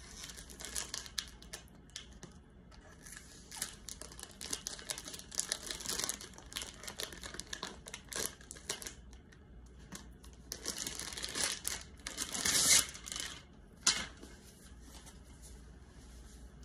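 Thin clear plastic packaging bag crinkling and rustling in the hands while a folded fabric bag is worked out of it, in irregular bursts, loudest about twelve seconds in.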